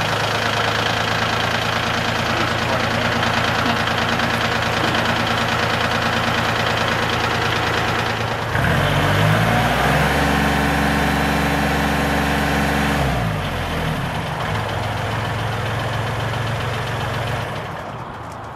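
Kubota L3901 compact tractor's three-cylinder diesel idling steadily just after a cold start. About halfway through it revs up to full RPM, holds there for about three seconds, then drops back to idle and stops near the end. It has a smooth, quiet sound.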